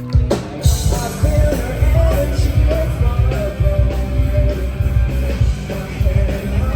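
Rock music with drums and a singing voice, starting abruptly about half a second in and running with a steady beat.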